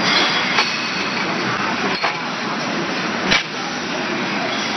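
Automatic CNC lathe with bar feeder running on brass bar stock: a steady machine noise broken by three sharp metallic clinks, the loudest a little over three seconds in.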